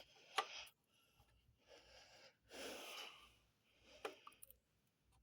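Near silence, with a person's faint breathing: a few soft exhales about a second apart, the clearest just under three seconds in. There are light clicks near the start and about four seconds in.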